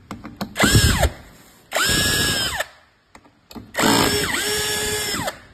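Power screwdriver backing out the screws of a cover: three short runs, each winding up to a steady whine and winding down as it stops, with light clicks between runs.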